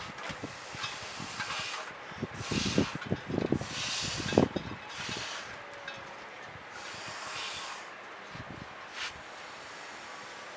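Gusty wind buffeting the microphone: low rumbling thumps over a steady rushing hiss, with stronger rushes in the first half.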